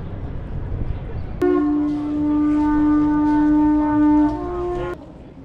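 Conch shell trumpet blown in one long, loud note of about three and a half seconds that steps up in pitch near the end, then cuts off suddenly. Before it, steady street noise.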